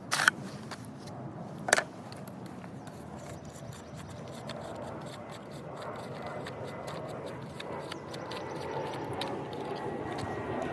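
Two sharp clicks in the first two seconds, then light ticking and scraping: a chainsaw bar and chain being handled and fitted onto a Dewalt 20V battery chainsaw.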